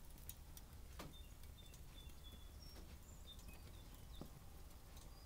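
Near silence with faint, scattered crackles from kiln-dried wood fuel burning in small backpacking wood stoves, over a low steady hum.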